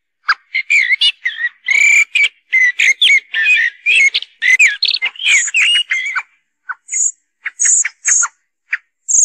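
Recorded common blackbird calls used as a hunting lure: a dense run of chattering, warbling notes with quick pitch glides for about six seconds, then a string of short, sharp call notes.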